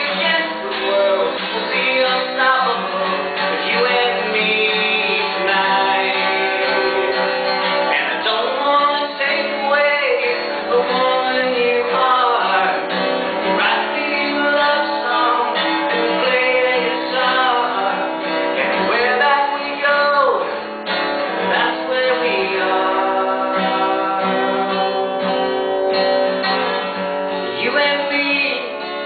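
Acoustic guitar strummed steadily while a man sings an original song, a solo singer-songwriter performance.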